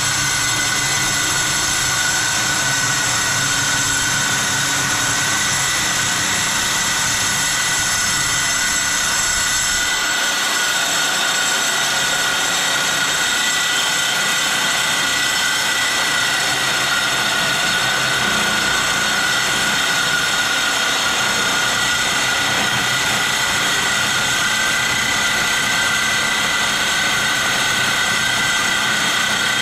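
Evolution S210CCS metal-cutting circular saw running under load as its blade cuts through half-inch steel plate: a loud, steady cutting noise with a high whine.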